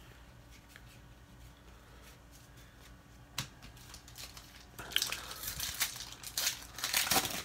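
A foil wrapper of a Donruss football card pack crinkling and tearing as it is pulled open by hand, in a run of crackly rustles from about five seconds in, after a single tap midway.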